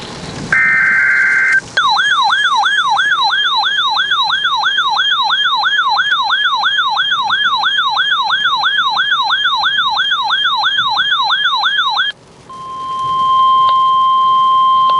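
Emergency alert broadcast tones: a brief burst of warbling data tones, then an electronic siren wailing rapidly up and down, nearly three wails a second, for about ten seconds. It cuts off and is followed by the steady single-pitch NOAA Weather Radio warning alarm tone, which signals a warning about to be read.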